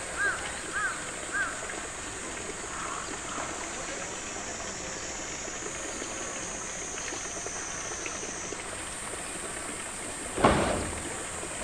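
A hollow thud about ten seconds in as a polar bear shoves a blue plastic tank on the concrete, followed by a couple of softer knocks. A few short repeated chirps sound at the start, over a steady high-pitched buzz.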